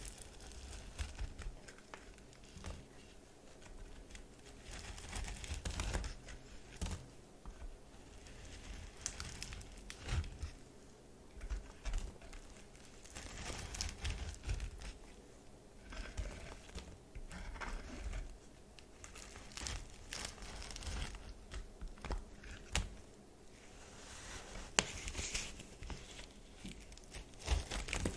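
Microwave-puffed baby soap being cut: dry, crumbly crackling and crunching as the brittle soap foam breaks, coming in irregular bursts with a few sharp snaps.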